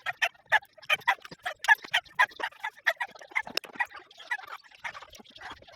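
A ratchet wrench clicking in quick strokes while tightening a loose engine-support bolt.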